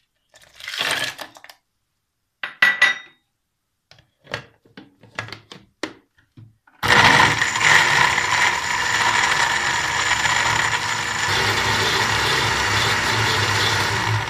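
Ice cubes going into a blender jar with a few separate clinks and knocks. About seven seconds in, the electric blender starts and runs steadily, crushing the ice into the peach mixture.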